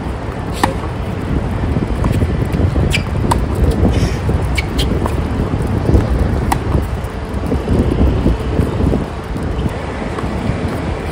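Tennis rally: about five sharp racket-on-ball strikes a second or two apart, the last about six and a half seconds in, over a steady low rumble.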